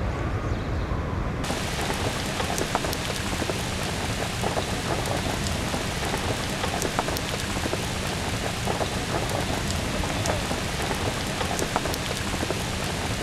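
Heavy rain falling on lake water: a dense, steady hiss full of small drop ticks, starting abruptly about a second and a half in.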